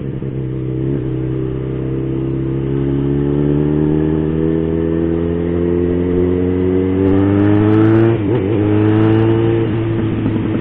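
Yamaha XJ6's 600 cc inline-four motorcycle engine accelerating, its revs climbing steadily in one gear, then dropping at an upshift about eight seconds in before pulling again.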